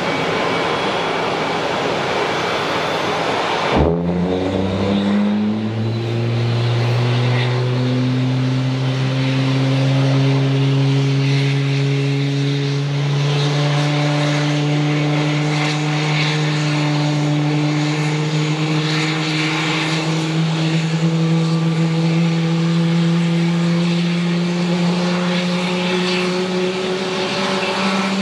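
Airbus A321 jet engine spooling up during start. A sudden thump comes about four seconds in, then a whine of several tones sets in and climbs slowly in pitch over a steady rushing noise.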